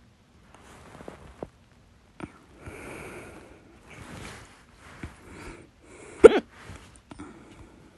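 A person hiccupping, with one loud, sharp hiccup about six seconds in, fainter catches near the start, and breathing between them.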